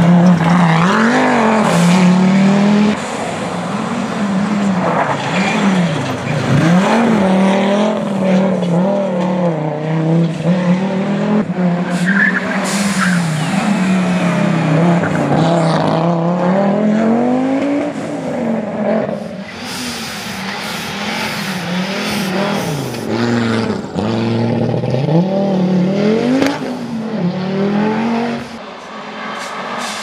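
Audi quattro rally car's turbocharged five-cylinder engine driven hard, its note rising and dropping again and again through the gears.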